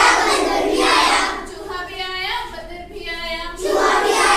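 Children singing a Hindi nursery rhyme, in sung phrases with a softer stretch in the middle.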